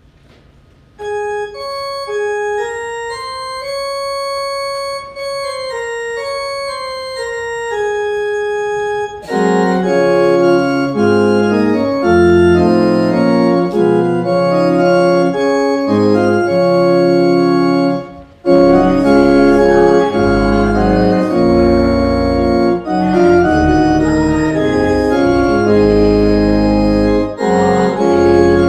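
Church organ playing a hymn. A lone melody line starts about a second in, full chords with deep pedal bass join at about nine seconds, and after a brief break near eighteen seconds it resumes fuller, with a stronger bass.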